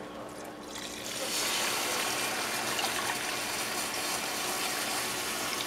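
Chicken stock pouring from a glass measuring jug into a Dutch oven of dark roux and vegetables: a steady gushing pour that starts about a second in.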